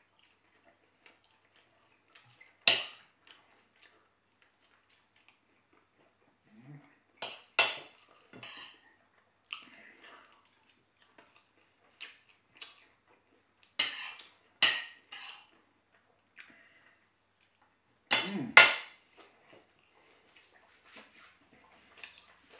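Knife and fork clinking and scraping on a plate while cutting chicken and rice, in scattered sharp strokes with pauses between, the loudest cluster about eighteen seconds in.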